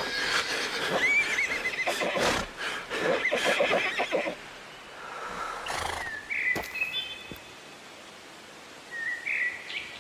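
Horse whinnying with a wavering, quivering pitch, over a clatter of knocks in the first few seconds; more short pitched calls come near the middle and near the end.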